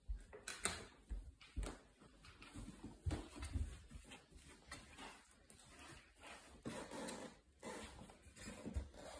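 A puppy moving about on a tile floor and nosing at a bag: scattered light clicks, soft knocks and rustles at irregular moments.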